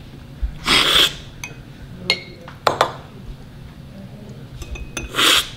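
Coffee slurped hard off cupping spoons twice, about a second in and again near the end, spraying it across the palate to taste it. Metal spoons clink a few times against glass cups in between.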